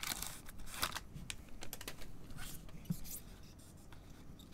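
A Panini Donruss foil trading-card pack being torn open, its wrapper crackling in quick, sharp clicks and crinkles for about three seconds. It then turns to a softer rustle as the cards are slid out.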